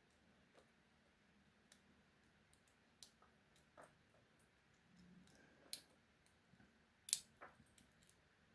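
Faint, scattered clicks and light scrapes of a lock pick working the pin stack of a Dekton padlock's brass cylinder under a tension bar, with a few sharper clicks in the second half.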